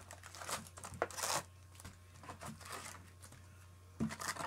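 Foil trading-card packs crinkling and rustling as they are pulled by hand from a cardboard hobby box and set down on a stack, in a few short irregular bursts, the loudest about a second in.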